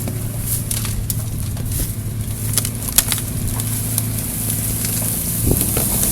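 Off-road vehicle's engine running steadily at low speed, with scattered sharp clicks and knocks, the loudest about three seconds in.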